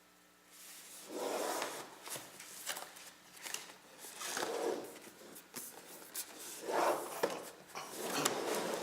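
Cardboard box and packaging handled and rubbing as a power supply is unboxed: a series of irregular swishes and scrapes with a few light knocks, starting about half a second in.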